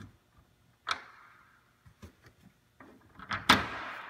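Two-piece plastic security bolt seal pushed together through the holes in a plastic Gaylord container's lid and side: a few light clicks and knocks, then a loud snap about three and a half seconds in as the halves lock shut.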